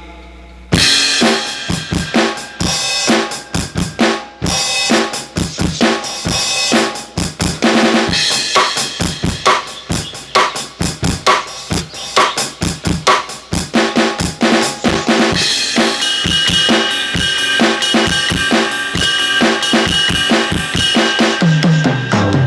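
Aroma TDX-15S electronic drum kit played on its jazz kit preset: a drum groove of kick, snare and cymbals starting about a second in, closing with a tom fill that falls in pitch.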